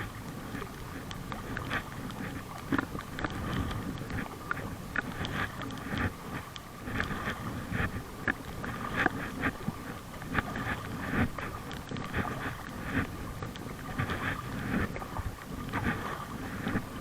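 Water splashing and sloshing around a packraft being paddled, in irregular strokes, with wind buffeting the microphone.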